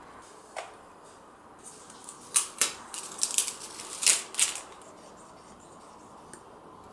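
Clear plastic film crackling as it is handled and peeled off a circuit board coated with tacky black UV solder mask: one click just after the start, then a cluster of sharp crackles lasting about two seconds.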